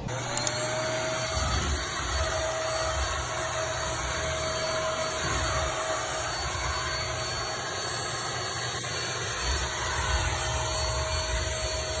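Vacuum cleaner running with a steady whine and hiss, its floor head pushed back and forth over a woven rug with low rumbling scrapes.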